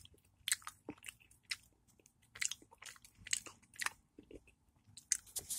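A person chewing a bite of an old Cadbury chocolate cream-filled egg: faint, irregular mouth clicks and smacks.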